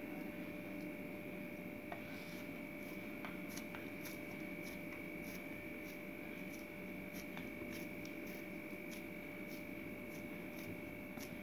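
Hands pressing and patting a coiled, oiled parotta dough flat on a granite counter: faint soft taps and rubbing, scattered irregularly, over a steady faint hum.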